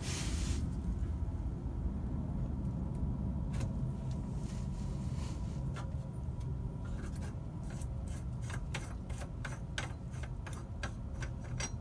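Raw water strainer cap being unscrewed by hand: a string of small clicks and scrapes from the threaded cap, sparse at first and coming thick and fast in the second half, over a steady low hum. A short rush of noise comes right at the start.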